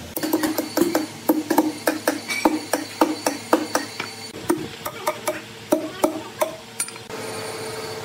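Metal ratchet clicking at a steady pace, about four clicks a second, while the cable around a big log is worked. It stops about seven seconds in, and a steady machine hum follows.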